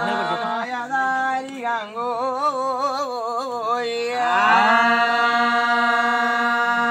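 Music: a wavering melodic line over a steady drone, settling into one long held note about four seconds in.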